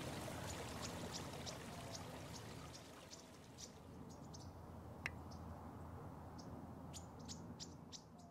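Outdoor nature ambience fading out: a steady water-like rush with short high chirps repeating a few times a second.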